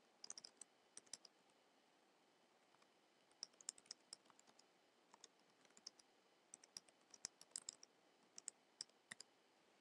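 Faint, quick keystroke clicks of text being typed, coming in irregular clusters with short pauses between them.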